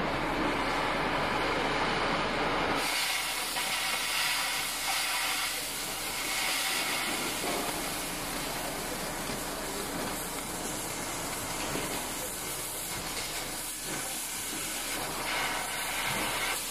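Oxy-fuel cutting torch burning on steel: a rushing flame, then about three seconds in a steady, much brighter hiss sets in as the cutting-oxygen jet opens and cuts through a rectangular steel tube.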